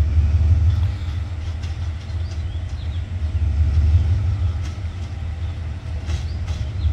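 Low, steady rumble of a two-car RHN diesel railcar train approaching on the tracks, with a few faint clicks.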